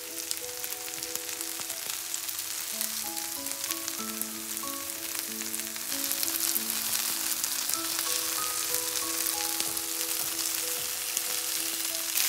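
Vegetable patties frying in hot oil in a nonstick pan: a steady crackling sizzle that gets louder about halfway through as the patties are turned over. A light melody of single notes plays under it.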